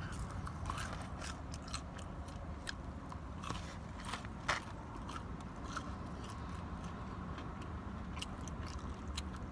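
A person chewing crispy fried fast food with the mouth close to the microphone: scattered crisp crunching clicks over a steady low hum inside the car.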